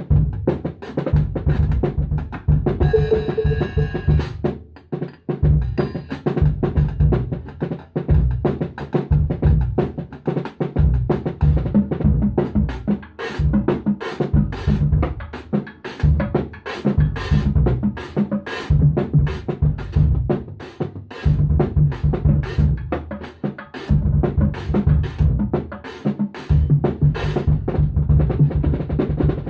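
Drum kit played continuously in a fast groove: bass drum, snare and cymbal strokes in close succession, with a couple of brief breaks in the pattern.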